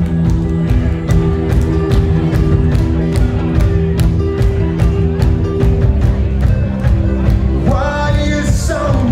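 Live rock band playing: electric guitars and bass over a steady drum beat, and a voice comes in near the end.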